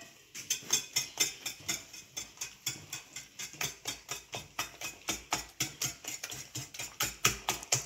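Wire whisk beating eggs and sugar in a glass bowl, its wires clicking against the glass in a rapid, even rhythm.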